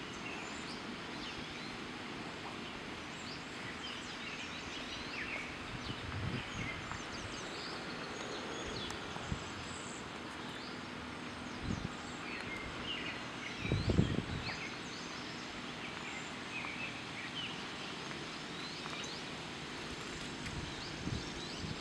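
Outdoor ambience of birds chirping here and there over a steady background hiss, with a few low thumps, the loudest about two thirds of the way through.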